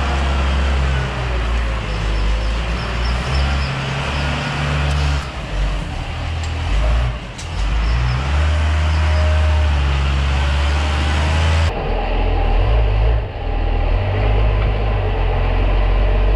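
A farm tractor's diesel engine running, heard close with a heavy low rumble; the sound changes abruptly, duller, about two-thirds of the way through.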